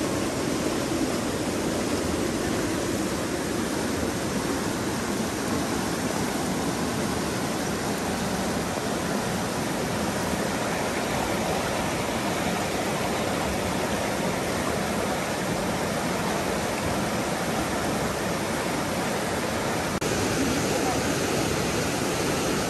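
Swift river rushing through rapids: a steady, even sound of whitewater that gets a little louder about twenty seconds in.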